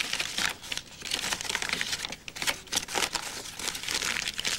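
A crumpled sheet of paper being unfolded and smoothed out by hand, crinkling unevenly with many small sharp crackles.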